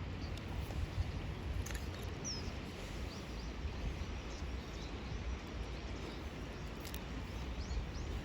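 Outdoor background noise with a steady low rumble and small birds chirping faintly several times, plus a couple of sharp clicks.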